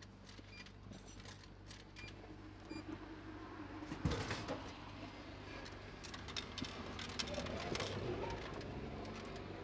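Coins clinking as they are fed one by one into a drink vending machine's coin slot, then about four seconds in a bottle drops into the dispensing tray with a thud. Near the end the tray's plastic flap is pushed open with a few clicks.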